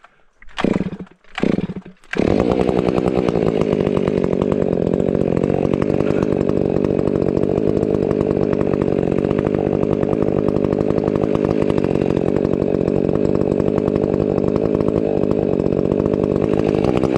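Stihl 500i fuel-injected two-stroke chainsaw being pull-started: a few short pulls, then it catches about two seconds in and runs steadily at high speed.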